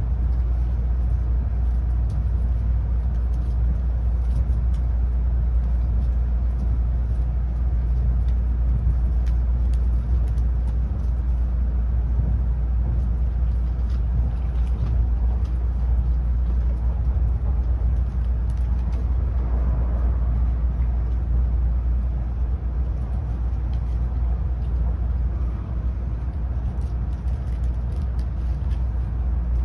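Cabin noise inside a Tokaido Shinkansen Nozomi train under way: a steady low rumble of the running train.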